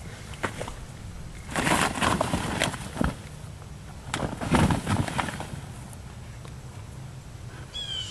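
Rustling and scuffling in two bursts, about one and a half and four and a half seconds in, with a single sharp tap near three seconds: a dog shifting about inside a fabric agility tunnel.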